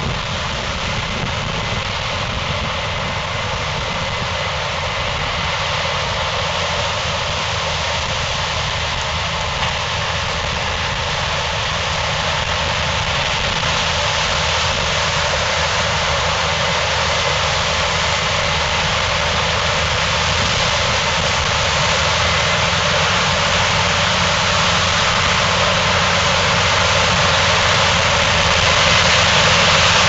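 2011 Case IH 8120 combine harvesting corn and unloading into a tractor-pulled grain cart: engines and threshing machinery running steadily, growing gradually louder as the machines approach.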